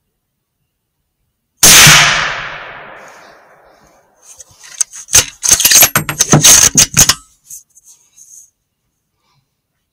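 A single shot from a Ruger American bolt-action rifle in .308 firing Winchester 150-grain ammunition, loud and sudden, its echo dying away over about two seconds. About two and a half seconds later comes a quick run of metallic clicks and clacks lasting about three seconds, as the bolt is worked to eject the spent case and chamber another round.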